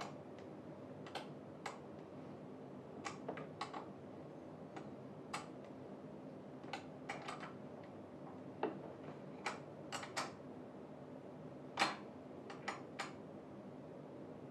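Irregular light clicks and taps of tools and metal chair parts being handled during gaming chair assembly, over a steady low hum.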